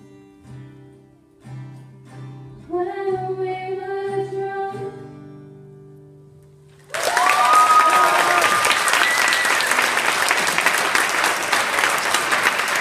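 Acoustic guitar and a girl's singing voice ending a song: a long sung note, then the last guitar notes ring and fade. About seven seconds in, an audience breaks into loud, sustained applause.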